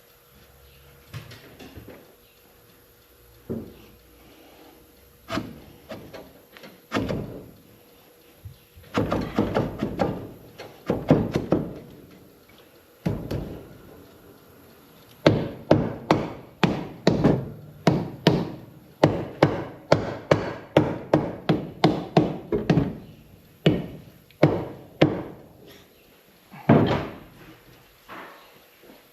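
A series of sharp knocks and clunks, scattered at first, then a steady run of about two knocks a second for some ten seconds, with one last knock near the end.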